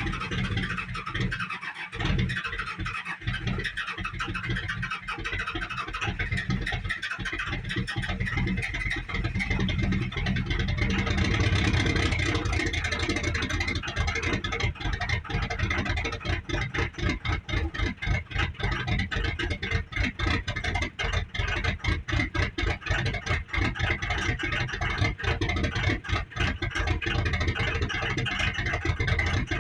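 A 24-valve Cummins diesel cold-starting about two seconds in, then running with a fast, even clatter and a steady turbocharger whistle.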